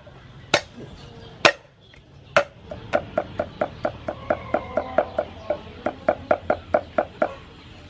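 Cleaver chopping garlic on a wooden chopping board: three single heavy chops about a second apart, then rapid chopping at about five strokes a second that stops shortly before the end.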